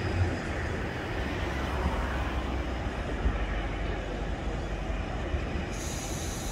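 Steady low rumble of airport background noise, with no single event standing out; a high hiss joins near the end.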